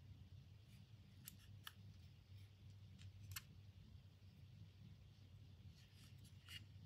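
Near silence with a few faint, scattered clicks from a steel digital caliper being handled and turned over in the hands, over a low steady hum.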